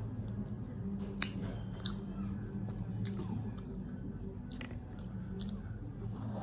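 Close-up eating sounds: chewing a mouthful of laccha paratha roll stuffed with chow mein, with a few sharp mouth clicks, then a bite into the flaky roll near the end. A steady low hum runs underneath.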